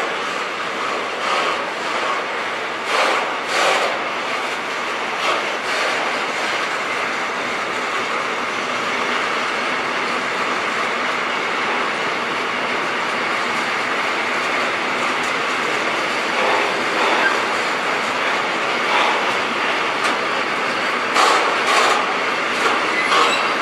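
Container freight wagons rolling past on the rails: a steady rush of wheel noise, with clusters of clickety-clack knocks a few seconds in and again near the end.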